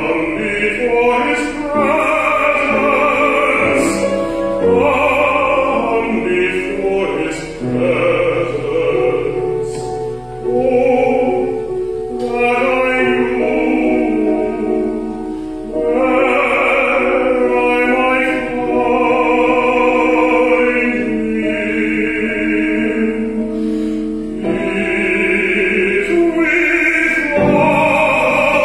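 Prelude music for a church service: a solo voice singing in an operatic style with wide vibrato over sustained accompaniment.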